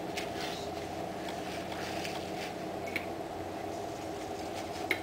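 A steady mechanical hum, with a few light clicks and taps as the steel steering shaft and steering gear are handled.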